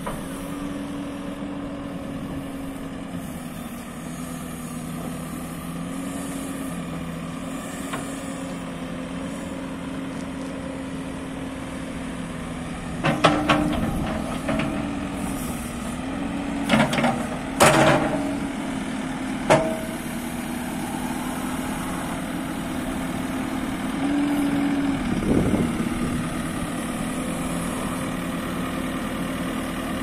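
JCB 3CX backhoe loader's diesel engine idling steadily, its note dipping and rising a little as the backhoe arm's hydraulics work. Several sharp metal clanks come around the middle, and the engine note swells briefly later on.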